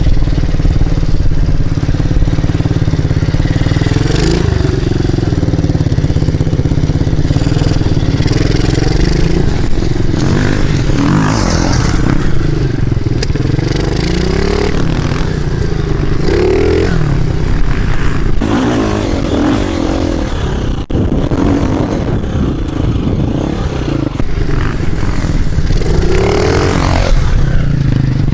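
Dirt bike engine running under the rider, revving up and down repeatedly as the throttle is opened and closed.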